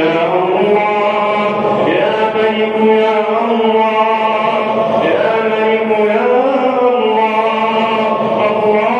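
Chanted Islamic supplication: a voice draws out long melodic notes that glide slowly up and down, over a steady low note held underneath.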